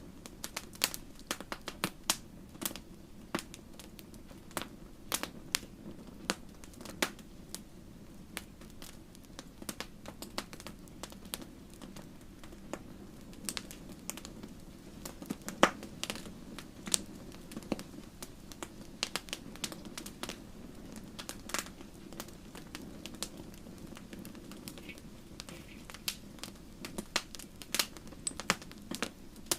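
Wood fire in a fireplace crackling, with irregular sharp pops over a steady low rumble of the flames; one louder pop about halfway through.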